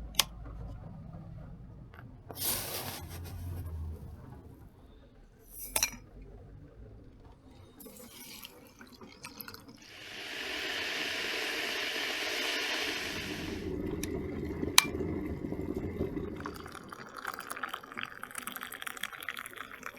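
Water flowing for about three seconds midway through, with scattered clinks and knocks before and after it.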